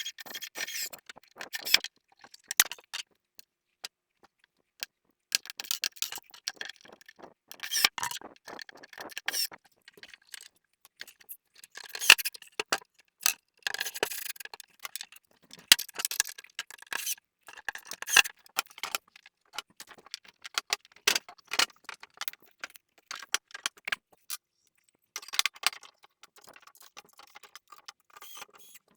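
Hands working with the hardware and wooden parts of a wooden toy chest during assembly: irregular bursts of clicks, small metallic rattles and scrapes, with short pauses between them.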